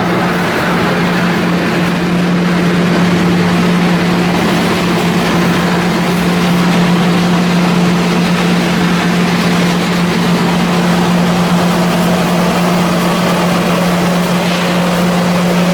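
An engine or large machine running steadily at a constant speed, a loud even hum with one steady low tone and a rough noise over it.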